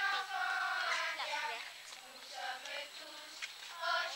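A group of schoolchildren singing together in chorus, holding notes, quieter for a moment just past the middle and picking up again near the end.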